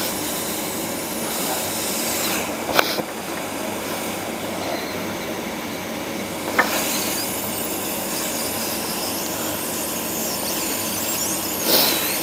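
Hot-air rework station blowing a steady hiss of hot air, reflowing solder to refit a small part on an LED TV panel's circuit board, with three light clicks along the way.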